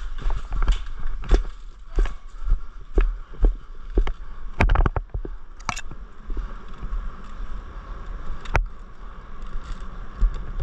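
Footsteps and gear jostling on a body-worn camera as an airsoft player moves, thumping about twice a second, with a quick cluster of sharp clicks about halfway through and a single sharp click later.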